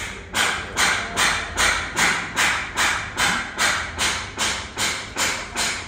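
A steady run of knocks, about two and a half a second, each a sharp hit that dies away quickly.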